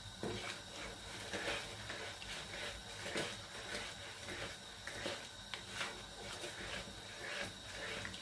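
A spoon scraping and tapping against a non-stick kadhai as a thick semolina, milk and sugar halwa mixture is stirred without stopping, in irregular strokes about one or two a second over a low steady hiss. The constant stirring keeps sugar that hardened in the hot oil dissolving into the mixture and stops it sticking to the bottom.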